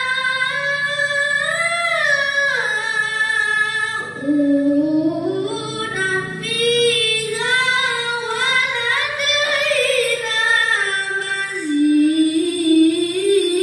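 A boy reciting the Quran in the melodic tilawah style into a microphone. He holds long notes with ornamented turns, with a short break about four seconds in, where the voice drops to a lower pitch.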